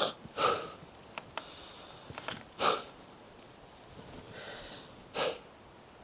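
A mountain-bike rider breathing hard close to the microphone while stopped: four short, loud breaths, two close together at the start and then one every two and a half seconds or so, with quiet in between.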